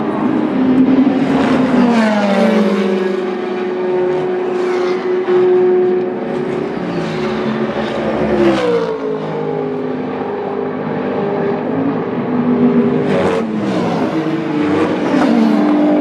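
Endurance racing cars pass at speed one after another, engines overlapping, each engine note dropping in pitch as the car goes by. The passes come about two seconds in, around the middle and again around thirteen seconds in.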